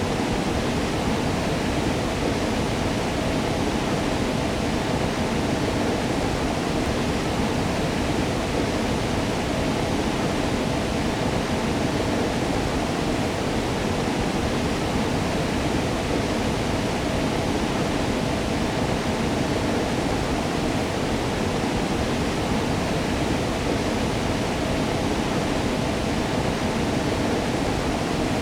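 Waterfall: falling water rushing steadily and evenly, deepest and fullest in the low range, with no breaks or changes.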